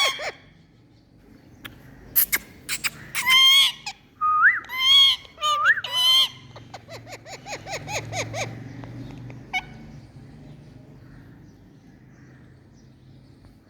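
Pet Indian parrot calling: a few harsh squawks and two short rising whistles, then a fast run of chattering clicks, falling quiet after about ten seconds.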